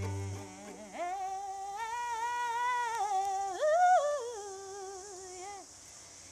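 A woman's voice holds one long, drawn-out sung note as the ending of a song, with a swell and a rise in pitch about three seconds in before it slides down and fades. A low cello note dies away at the start.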